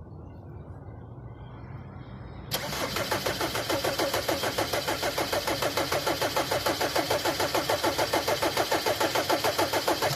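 Mercedes Vito's engine cranked by the starter motor for about seven and a half seconds, a rhythmic chugging of about six beats a second that cuts off suddenly near the end. The engine never catches: it is hard-starting and fails to fire.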